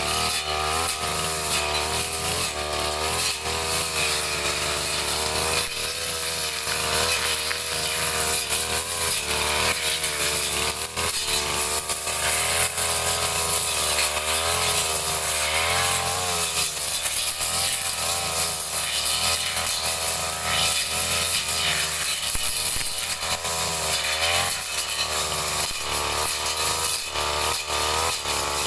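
Petrol brush cutter running hard while clearing grass and undergrowth, its engine pitch rising and falling again and again as the blade bites and frees.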